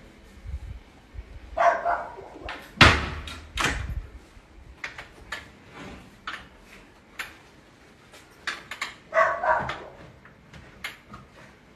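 A dog barking in two short bouts, about two seconds in and again about nine seconds in, among scattered knocks and clicks. The loudest sound is a heavy thump about three seconds in.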